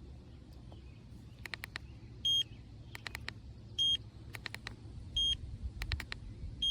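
Electric scooter's turn-signal indicator beeping: a short, even beep about every one and a half seconds, with a quick run of clicks between beeps.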